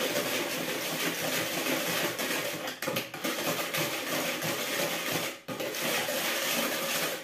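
Metal hand whisk beating pancake batter in a plastic bowl: a fast, steady clatter and scrape, with a short break about five and a half seconds in.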